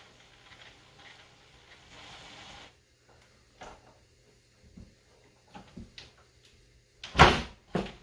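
Hand work on the bolts of a hardwood workbench: scattered small metal clicks and a short scrape as a hex key turns a bolt, then two loud clunks near the end.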